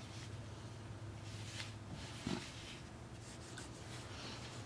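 Knit gloves rubbing and shifting on the fabric-covered body of an Anker Soundcore Flare 2 Bluetooth speaker as it is handled: soft scuffing, a few faint ticks and a soft knock about halfway, over a steady low hum.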